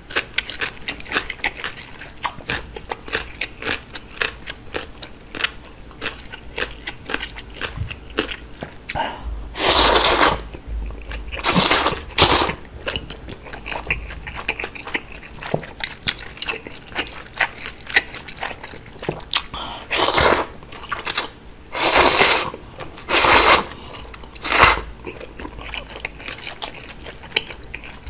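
Close-miked chewing of cold udon noodles: a run of small wet clicks and smacks, broken by loud slurps of noodles, one long slurp about a third of the way in and a cluster of shorter ones past the middle.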